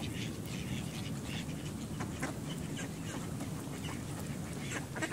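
A small flock of domestic ducks quacking, many short calls overlapping one another, over a steady low rumble.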